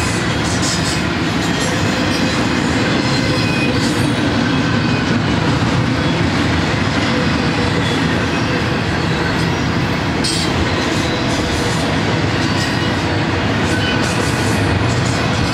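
Double-stack container well cars of a Union Pacific intermodal freight train rolling past: a steady rumble and clatter of steel wheels on the rails.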